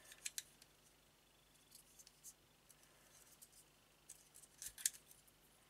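Small plastic model-kit parts clicking against each other as fingers press a piece onto the scale engine block of a Yamaha VMax model: a couple of clicks at the start, a few faint ticks, then a sharper cluster of clicks near the end. The piece is binding and will not seat fully.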